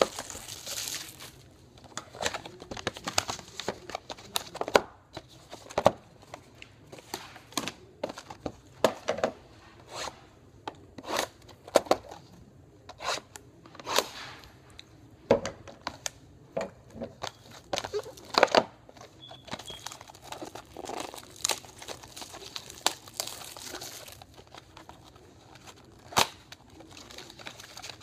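Plastic shrink wrap crinkling and tearing as it is peeled off and crumpled from a cardboard trading-card box, followed by irregular clicks, rustles and light knocks of cardboard boxes being handled and a box flap being pried open.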